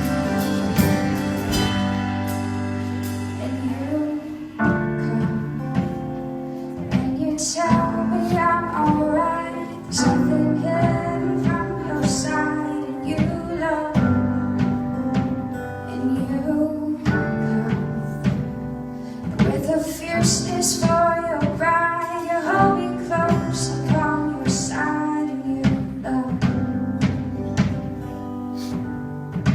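A song playing: sustained instrumental chords, then a voice singing over the accompaniment from about eight seconds in.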